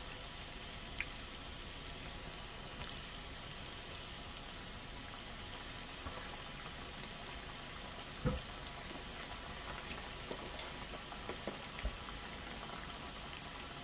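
Batter-coated vegan ham strips deep-frying in a pan of hot oil: a steady sizzle with a few small pops scattered through it.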